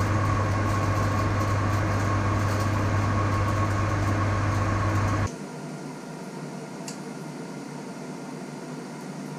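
Metal lathe running during a light boring pass with a small boring bar: a steady motor hum with a thin steady tone over it. It cuts off abruptly about five seconds in, leaving a faint steady shop hum and a light click or two.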